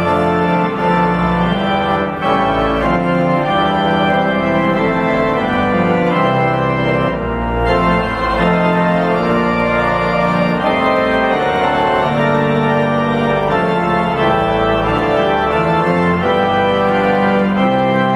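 Church organ playing full, sustained chords over deep bass notes that move beneath them.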